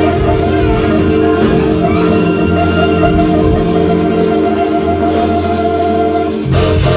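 Live band playing, with sustained keyboard chords over a moving bass line. The music dips briefly near the end, then comes back fuller.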